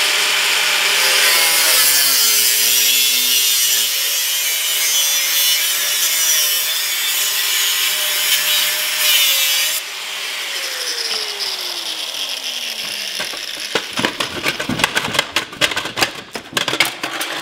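Angle grinder cutting through a scooter's rusted exhaust pipe, its motor note wavering under load. About ten seconds in the grinder comes off the cut and winds down with a falling whine. Near the end come clattering knocks of metal as the cut-off silencer is worked free.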